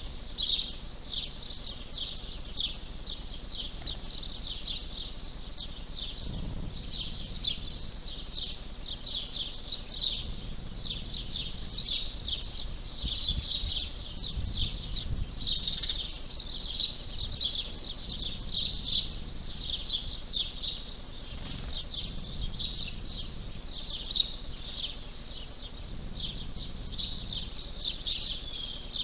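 A flock of house sparrows chirping: many short chirps overlapping in a continuous chatter.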